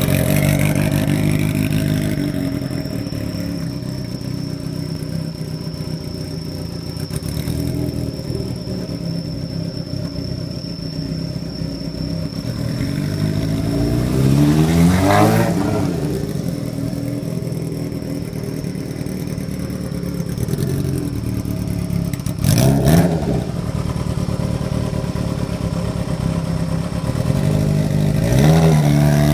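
Yamaha XJR400R's four-cylinder engine idling through an aftermarket exhaust fitted with a Dangan Racing inner silencer. It is revved up and back down about halfway through, blipped briefly later, and revved again near the end.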